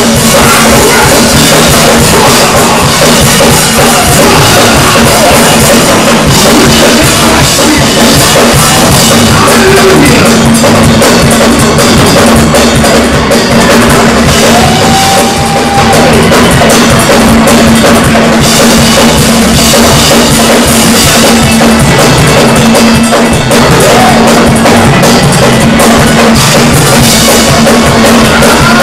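Loud live gospel praise music from a church band: a drum kit playing a driving, steady beat with bass drum and snare over an organ holding a low note.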